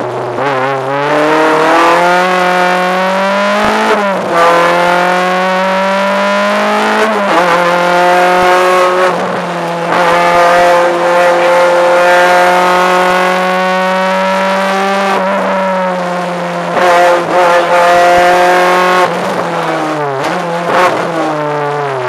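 Ford Puma rally car's engine, heard from inside the cabin, revving hard. Its pitch climbs and drops with gear changes and holds steady through long stretches.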